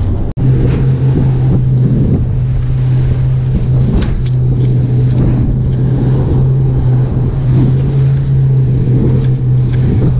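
Motorboat running at speed: a steady low engine drone with water spray and rushing noise, and a few sharp knocks of the hull through the chop. The sound starts just after a momentary drop-out.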